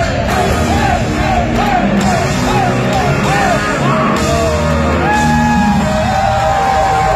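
Live rock band at full volume, recorded from the crowd: a lead line repeats a short bending figure over pounding drums and bass, then settles into one long held high note about five seconds in. Crowd yells sit under the music.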